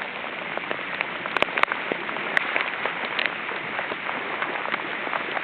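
Steady downpour of rain, with single drops striking close by as sharp, irregular clicks.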